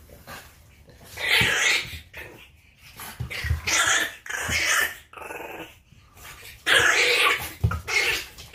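A French bulldog and a French bulldog puppy vocalizing as they play-wrestle, in a string of short noisy bursts with brief pauses between them.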